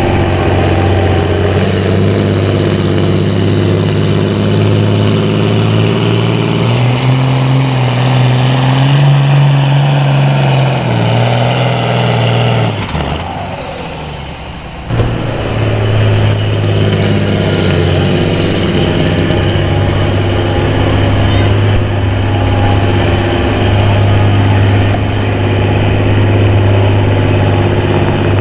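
Pulling tractor's engine running flat out at high, steady revs, its pitch climbing for a few seconds partway through. About halfway it fades briefly, then comes back suddenly and holds steady.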